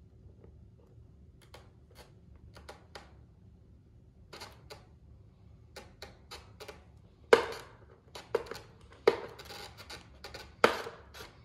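Scattered small clicks and taps of hands and a small tool working a steel pushrod wire into a servo arm and plastic linkage parts on an E-flite F-16 model jet. Three louder sharp knocks come in the second half, about a second and a half apart.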